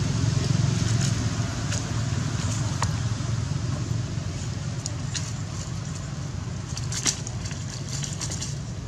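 Dry leaf litter crackling and snapping under macaques moving about, with scattered sharp clicks, the sharpest about seven seconds in, over a steady low rumble.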